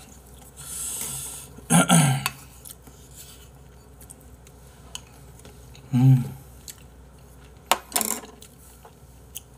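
Mukbang eating sounds: a spoon clicking against bowls, with chewing in between. Two short hummed grunts, one about two seconds in and one about six seconds in, and a few sharp clicks near the end.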